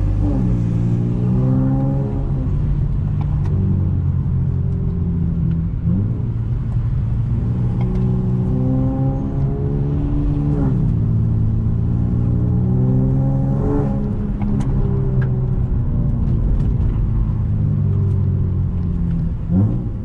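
Honda J35 V6 engine and exhaust under way, pulling up in pitch and dropping back at each gear change, several times over.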